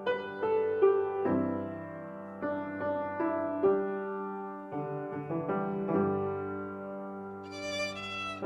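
Piano playing a slow hymn tune in separate, ringing notes. A violin comes in near the end.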